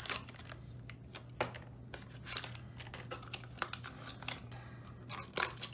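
Small hardware and its packaging being handled: irregular light clicks and short rustles as packets of screws and small parts are picked up and opened, over a steady low hum.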